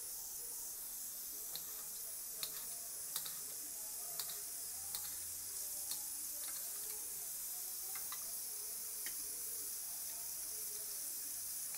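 Knife cutting a tomato on a stainless steel plate: light, irregular taps of the blade on the metal, about eight of them, over a steady background hiss.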